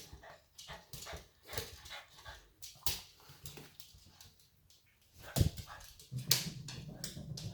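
A Boston terrier's paws and claws clattering and tapping in quick, irregular bursts as she scrambles about. There is a louder knock about five and a half seconds in.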